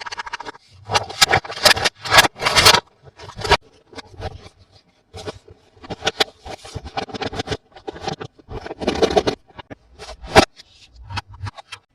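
Irregular rustling, crinkling and scraping from toy packaging and plastic toys being handled up close, with a sharp click near the end.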